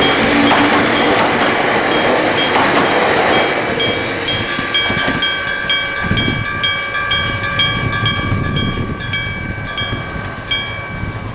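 A train passing over the level crossing, loud at first and fading after about four seconds, while the crossing's electric bell alarm, a bell mounted on the crossing post and struck directly, rings with a steady series of sharp "kan, kan, kan" clangs that come through clearly as the train recedes.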